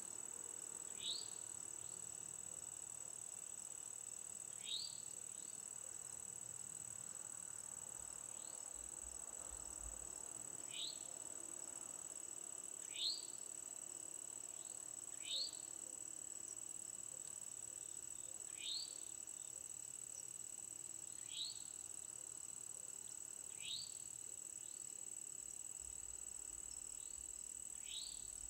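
Evening insect chorus: a steady high-pitched drone, with a short rising chirp repeated every few seconds, about nine or ten times.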